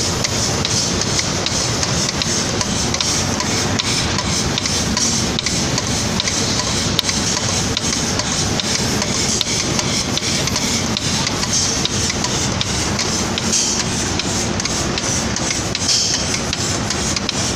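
Steady running noise of an automatic paint spraying and drying line: an even hiss over a low hum, with faint scattered ticks.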